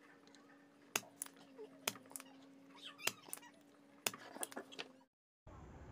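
Faint clicks and small knocks of desoldering work on a circuit board's solder side with a soldering iron and solder pump, about once a second, over a faint steady hum.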